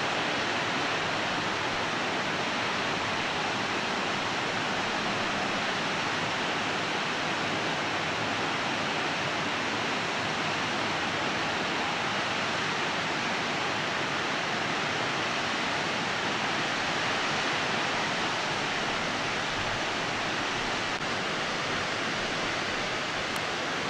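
Wentworth Falls, a waterfall cascading down tiers of rock, giving a steady, even rush of water.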